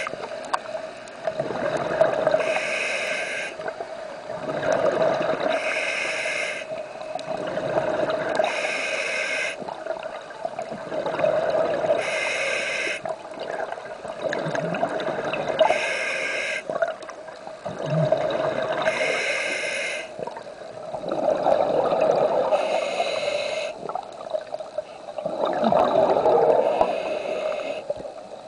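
A scuba diver breathing through a regulator underwater: a hissing breath about every three seconds, with bubbling and gurgling between breaths.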